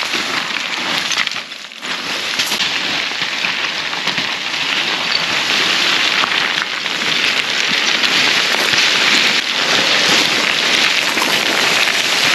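Loose scree crunching and sliding underfoot on a steep slope: a dense, continuous clatter of small stones that grows somewhat louder in the second half.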